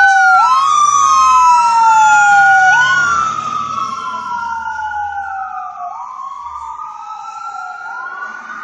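Fire engine driving past with its wail siren sounding: two siren tones sweep slowly up and down out of step over a low engine rumble. It is loud at first, then fades from about three seconds in as the truck drives away.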